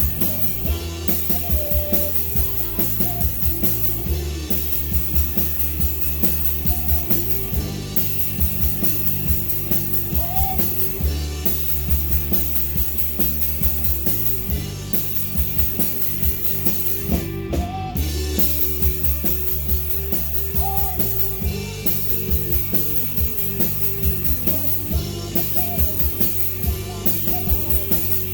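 Live rock band playing a song: a drum kit keeps a steady beat over held bass notes that change every couple of seconds, with a voice singing now and then.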